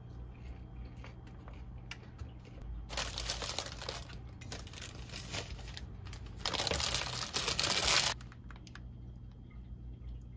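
Paper burger wrapper crinkling and rustling as it is handled and unwrapped, in two bursts about three seconds in and about six and a half seconds in, the second louder.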